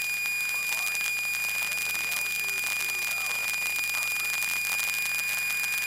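Piper Tomahawk's four-cylinder Lycoming engine and propeller running at full takeoff power, a steady drone heard inside the cockpit, with a steady high-pitched whine over it.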